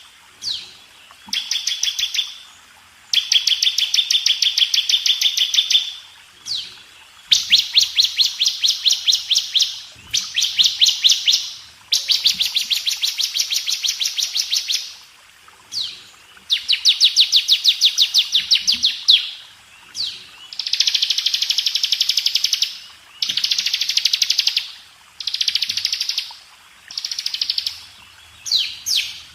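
Bar-winged prinia (ciblek) singing its rapid 'ngebren' trill: phrase after phrase of fast, high, closely spaced notes, each lasting one to four seconds, with short pauses between them.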